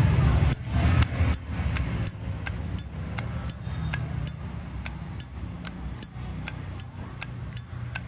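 Titanium-plated 1995 Zippo lighter's lid being flicked open and snapped shut over and over. About three sharp metallic clicks a second, each with a short bright ring, starting about half a second in.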